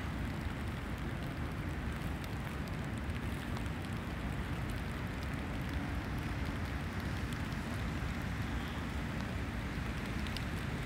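Steady heavy rain with an unbroken low rumble underneath and no distinct events.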